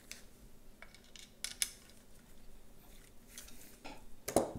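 Light clicks and taps of the tail tidy's parts being handled and fitted together, with a couple of sharper clicks about a second and a half in and another near the end.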